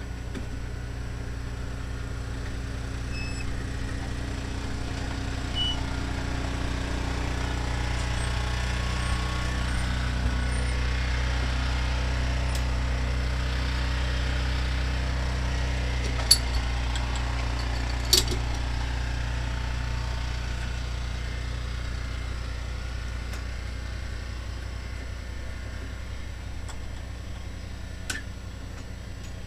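Small metal lathe running steadily at low speed while a hand tap is fed into a brass part to cut an internal thread, with a couple of sharp clicks a little past halfway and another near the end.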